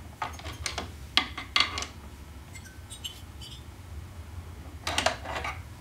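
Short metallic clinks and taps of an adjustable wrench working the nut of a bearing installation tool on its threaded rod, in a few clusters, over a low steady hum. The nut is being run in to press the tapered bearing cup adapter into the heated transmission case.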